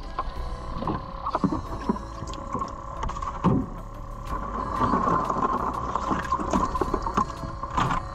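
Battery aerator pump humming steadily while live bay scallops in a cooler of water are moved by hand, their shells giving scattered knocks and clacks.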